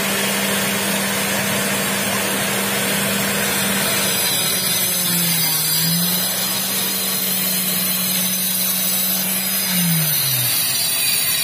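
A motor running with a steady hum over a loud hiss; its pitch sags once about five seconds in and recovers, then it winds down near the end, like a machine being switched off.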